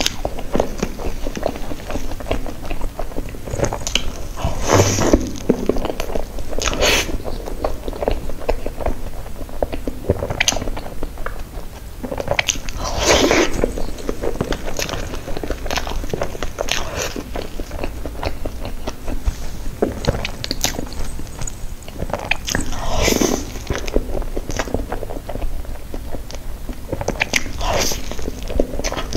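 Close-miked eating of strawberry mille-crepe cake with cream: steady wet chewing and small mouth clicks, with a few louder bites spread through.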